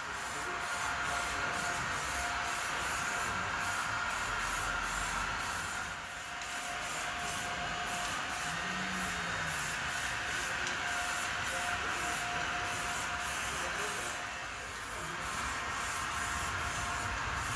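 Primer being sprayed onto a car's repaired body panel: long steady hissing passes that ease off briefly twice.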